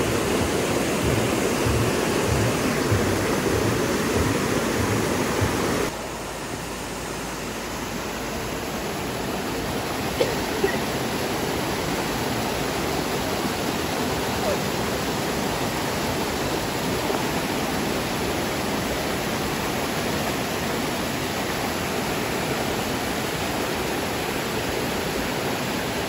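Waterfall, its water rushing in a steady, even hiss; the level drops suddenly about six seconds in, then holds steady.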